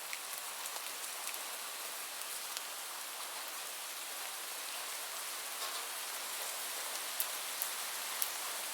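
Light rain falling steadily, a soft even hiss with scattered individual drops ticking sharply on a surface.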